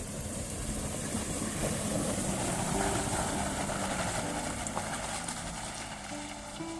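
Vehicle engine noise that swells to a peak about halfway through and then fades, with faint music underneath.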